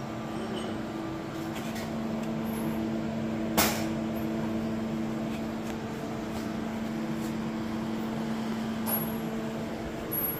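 Steady hum of a powered-up 1985 Okuma MC-4VA CNC vertical machining centre, holding several even tones, with one sharp click about three and a half seconds in.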